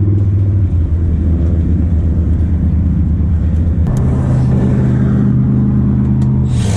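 Steady low mechanical drone that steps up slightly in pitch about four seconds in, with a short hiss near the end.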